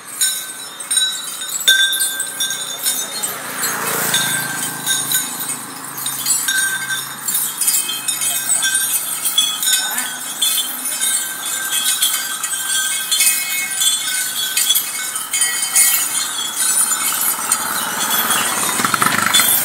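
Irregular metallic clinking and jingling over outdoor road noise, with a vehicle passing about four seconds in and again near the end.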